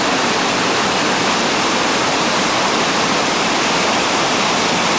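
Whitewater rapid rushing steadily: an even, loud wash of churning river water.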